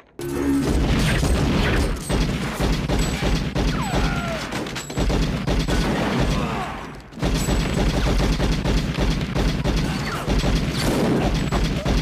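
Movie gunfight sound: two .45 1911 pistols fired in rapid, continuous volleys with loud crashing impacts. It starts suddenly just after the beginning, breaks off briefly around seven seconds in, then carries on.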